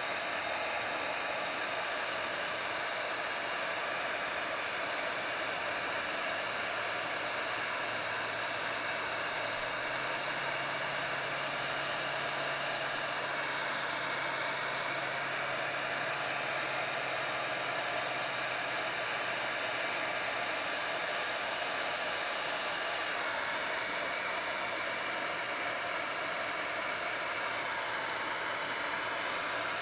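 Handheld electric heat gun running steadily, its fan blowing a constant rush of hot air to shrink heat-shrink tubing onto a tie-down hook.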